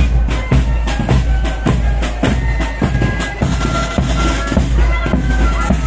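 Marching flute band playing: side drums and a bass drum beat a quick march while flutes carry the tune, which comes through more strongly from about halfway through.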